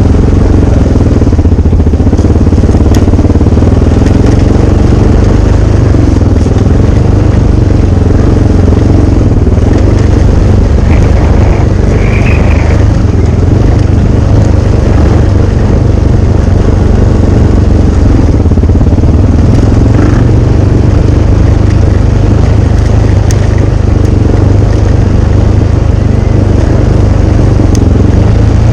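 A loud, steady, low engine rumble, like a running vehicle.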